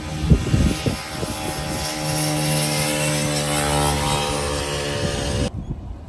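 A motor vehicle's engine running with a steady low drone, cutting off abruptly about five and a half seconds in. There are a few bumps in the first second.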